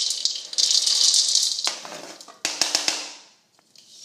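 Knife blade scraping chopped almonds and hazelnuts across a plastic cutting board, the nuts rattling as they slide off into a plastic bowl. A few sharp knocks follow after about two and a half seconds, then the sound dies away.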